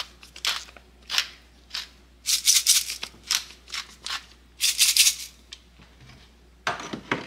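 Hand-held pepper mill grinding peppercorns: a run of short, crisp rasping twists, with two longer, louder spells of grinding in the middle. A duller knock near the end.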